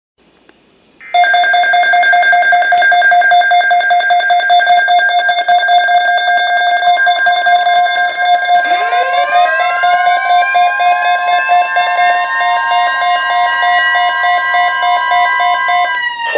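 A loud electronic alarm starts about a second in, holding steady tones. About eight seconds in, a siren joins, rising in pitch and levelling off, and it starts winding down at the very end.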